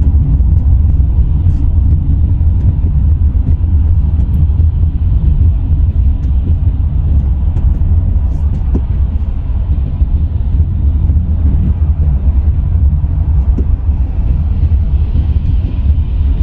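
Steady low rumble of a car driving on the freeway, heard from inside the cabin: engine and tyre road noise.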